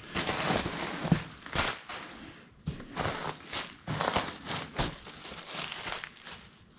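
Plastic bubble-wrap packing crinkling as it is grabbed and pulled out of a cardboard box, in a series of irregular bursts.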